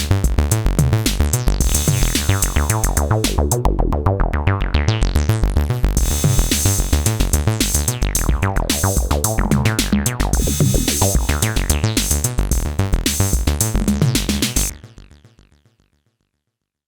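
Electronic music: a synthesizer bassline over a drum-machine beat, its tone swept up and down by the filter. The music stops about 15 seconds in and fades to silence.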